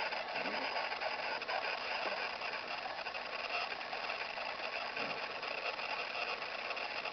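A sleeping man snoring, with a short low sliding sound near the start and another about five seconds in, each on a breath.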